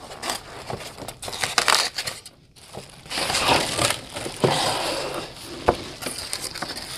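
Cardboard box flaps scraping and plastic wrapping crinkling as a plastic-wrapped flag case is slid out of its shipping box: uneven rustles and scrapes with a brief lull about two and a half seconds in, and one sharp knock near the end.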